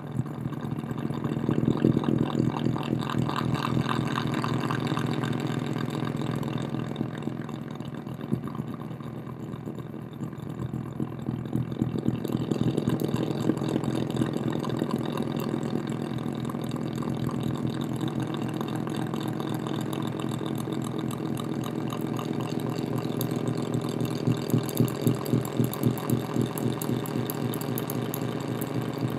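Electronic noise from a solar cell picking up strobe-light flicker, run through distortion and a DD-7 delay pedal and played through an amplifier and speaker: a dense, rapidly pulsing buzz over a low drone. It dips in level about a third of the way in, then swells again, with sharper pulses near the end.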